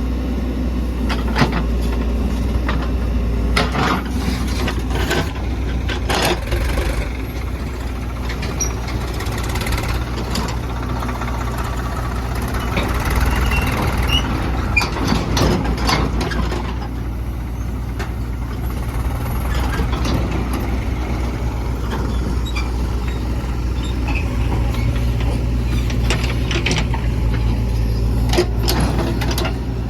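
Diesel engine of a JCB 3DX backhoe loader running steadily under work, with short clanks and knocks now and then as it loads mud.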